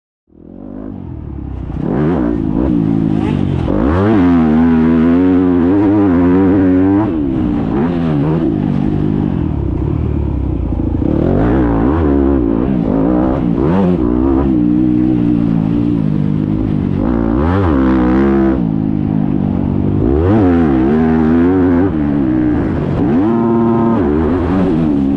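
Yamaha YZF four-stroke single-cylinder motocross bike ridden hard on a dirt track. The engine rises and falls in pitch again and again as the throttle is opened and closed. It fades in over the first couple of seconds.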